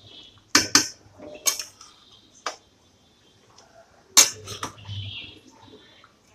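Spatula stirring a thin fish curry in a metal kadai, clinking and scraping against the pan: a pair of sharp clinks about half a second in, single ones near one and a half and two and a half seconds, and another pair about four seconds in, with soft stirring between.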